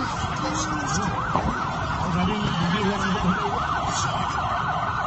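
Emergency vehicle siren yelping, a fast up-and-down wail repeating several times a second, over steady street noise.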